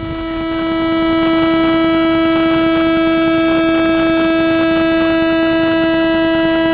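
A continuous electronic tone at one steady pitch, swelling in over about the first second and then held without change.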